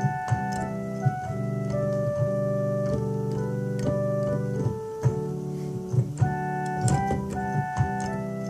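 Keyboard playing in an organ voice: sustained chords held under a slowly moving melody, with a few sharp clicks among the notes.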